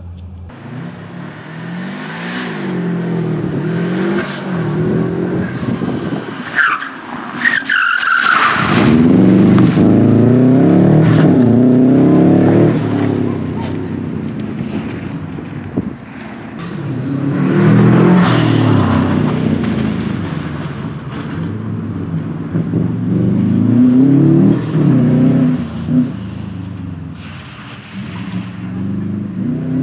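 Subaru Impreza STI rally car's turbocharged flat-four engine revving hard, rising and falling repeatedly through the gears as the car drives a loose gravel stage. A short high squeal comes about seven seconds in, and sharp cracks are scattered through it.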